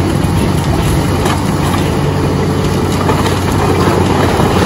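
Morbark 3400 XT horizontal grinder running under load, its 800-horsepower Caterpillar C18 diesel engine giving a steady low drone while wooden pallets are broken up inside, with dense crunching and clattering over it.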